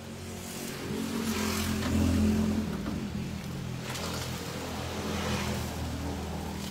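Beaten egg sizzling in a frying pan on a gas stove as the pan is tilted and shifted on the burner grate. Under it runs a steady low hum that swells about two seconds in.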